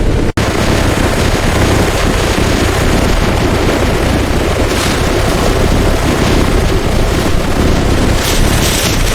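Loud, steady rushing noise, cut by a brief dropout just after the start.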